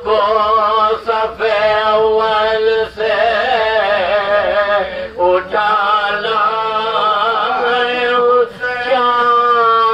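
Men chanting an Urdu marsiya, a Shia elegy, in long drawn-out melodic phrases with brief pauses for breath between lines.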